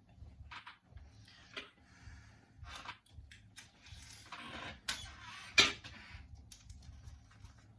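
Hands working clear tape: scattered light clicks and short rustles. There is one sharp click about five and a half seconds in.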